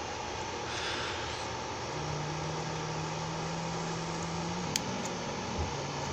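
Steady background hum with a low, steady motor drone that comes in about two seconds in and breaks off briefly a little before the end, and one sharp snip of small bonsai leaf trimmers cutting a shoot about three quarters of the way through.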